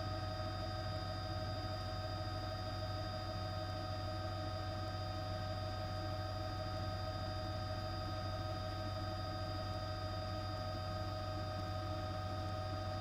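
Steady low hum with several constant high whining tones above it, unchanging throughout, with no voices or events.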